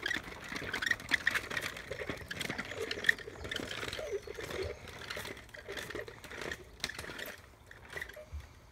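Small plastic-wheeled toddler tricycle rattling and clattering over uneven stone flagstones, an irregular run of clicks and knocks that fades toward the end as it moves away.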